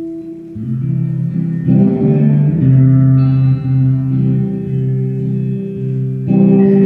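Semi-hollow electric guitar played solo: held notes and chords in the low-middle range, changing every half second to a second.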